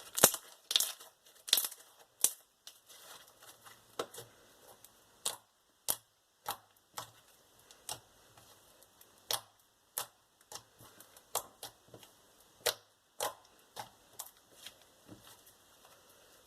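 Freshly activated clear glitter slime being squeezed and stretched, giving irregular sharp clicks and pops, about one or two a second, loudest in the first two seconds.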